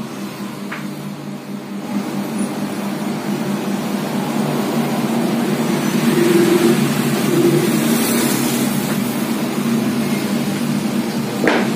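A motor vehicle engine running steadily, growing louder over the first six seconds or so and then holding; a short sharp click near the end.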